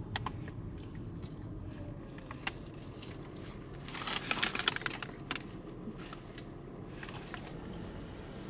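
A taiyaki being handled in its paper bag: scattered crinkles and clicks, with a burst of crackling about four seconds in, over a low steady rumble inside a car.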